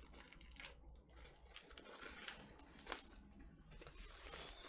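Faint crinkling and tearing of a vinyl record's plastic shrink wrap being opened by hand, with a sharper crackle about three seconds in.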